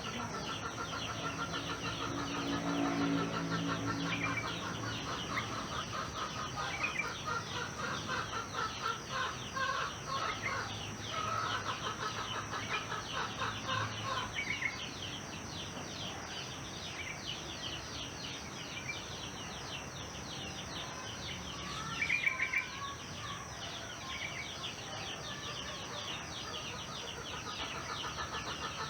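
Rural morning ambience: chickens clucking and calling over a steady, dense high chirping of small birds, with a run of rapid repeated calls in the first half and a short, louder call a little past two-thirds of the way through.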